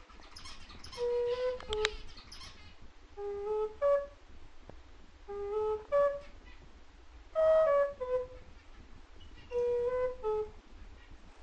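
Background music: a slow, soft melody in short phrases of a few mostly falling notes, about one phrase every two seconds. A flurry of high chirps sounds over the first two to three seconds.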